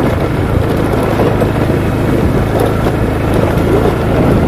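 Honda automatic scooter's engine running steadily while riding, with wind and road noise on the microphone.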